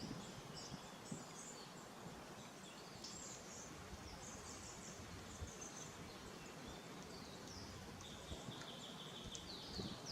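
Faint birdsong: several birds chirping in short, high repeated phrases over a soft steady background hiss.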